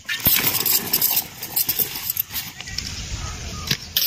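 Metal kitchenware clinking and scraping: a spoon or ladle knocking against steel pots, lids and serving dishes in a quick run of sharp clinks, busiest in the first second or so.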